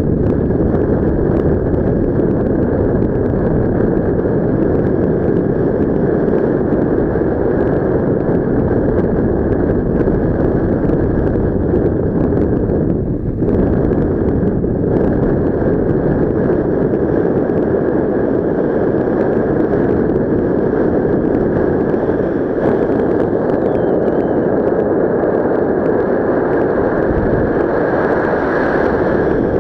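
Loud, steady wind noise on the microphone from the airflow of a paraglider in flight, with a brief dip about thirteen seconds in.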